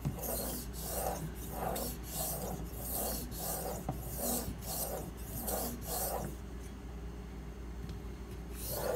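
Steel kitchen knife blade, held at a fixed angle by a clamp-on guide, stroked back and forth with light pressure across the 3000-grit side of a Suehiro SKG-27 whetstone slick with slurry. It makes a steady rasping scrape about twice a second, and the strokes stop about six seconds in.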